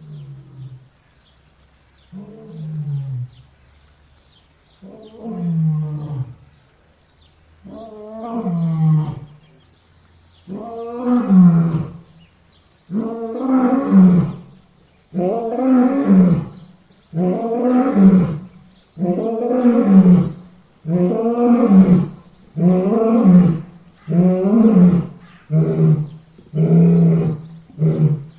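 A lion's roaring bout: a series of long moaning calls that grow louder and come closer together, building to full roars, then breaking into shorter grunts about a second apart near the end.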